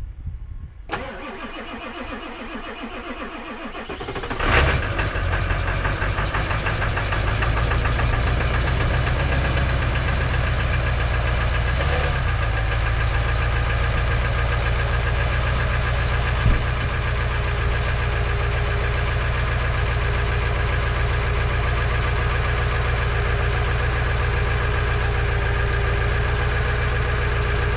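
Ford 7.3 L Power Stroke V8 turbo-diesel of a 2000 F-350 cranking on the starter for a few seconds, then catching with a loud burst and settling into a steady idle. It is a winter cold start with the glow plugs cycled only once and no block heater plugged in.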